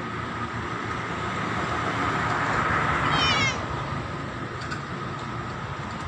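A cat meows once, a short call falling in pitch about three seconds in, over a steady background hum.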